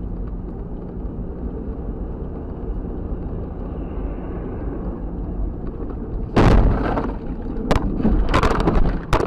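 Steady low rumble of a car's engine and road noise heard inside the cabin. About six and a half seconds in comes a sudden loud crash, followed by a run of further bangs and crunches.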